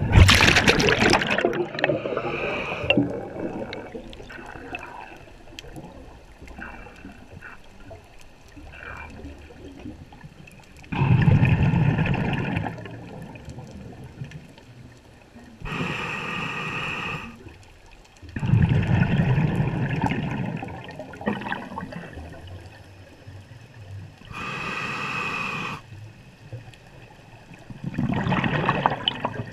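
Scuba diver breathing through a regulator underwater: several bursts of exhaled bubbles rumbling and gurgling, with shorter, brighter hissing inhalations through the regulator between them.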